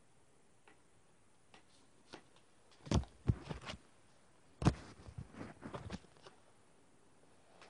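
Handling noise close to the microphone: two bursts of knocks and rubbing, about three seconds in and again about five seconds in, as a hand reaches in right by the recording phone.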